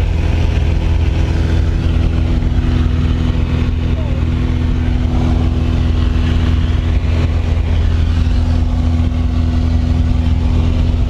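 Steady engine drone of a light propeller plane, heard from inside the cabin while it climbs to jump altitude, holding an even pitch throughout.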